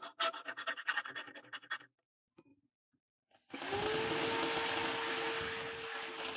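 Round file rasping in quick strokes inside the eye of a steel axe head for about two seconds. After a short gap, an electric drill starts up and runs at a steady hum while a mounted abrasive grinding stone grinds the inside of the axe eye.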